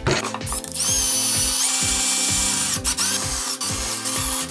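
Cordless drill running under load, drilling through a hole in a steel jig plate. Its motor whine rises as it spins up about a second in, steps higher soon after, and dips briefly a few times near the end.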